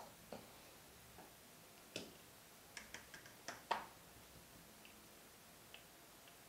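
Faint clicks and taps of a plastic toy figure handled against a wooden play board and a small plastic box: one tap early on, then a scattered cluster of taps between about two and four seconds in.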